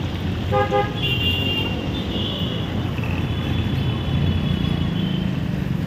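Chicken deep-frying in a large wok of bubbling oil over a steady low rumble of roadside traffic, with a brief pitched beep about half a second in.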